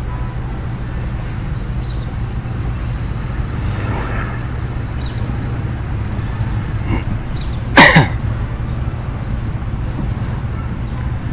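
Steady low hum and background noise with scattered faint, short high chirps, and one short, loud sharp sound about eight seconds in.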